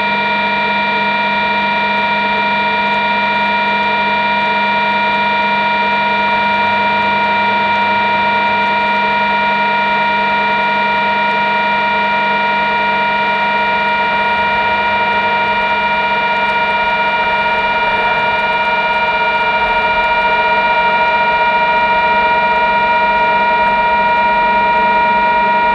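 A machine running with a steady whine made of several held tones.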